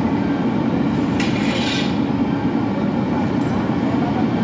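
Steady low mechanical rumble of heavy running machinery, with a brief hiss about a second in.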